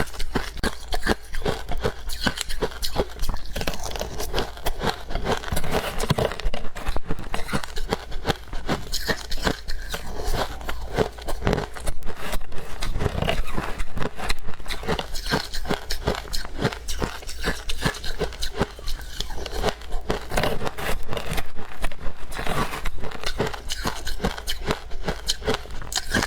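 Close-miked crunching of powdery freezer-frost snow ice: a dense, unbroken run of small crackles.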